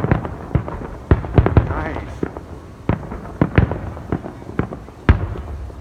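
Fireworks going off: an irregular run of sharp bangs and crackling pops, several a second, with louder booms along the way.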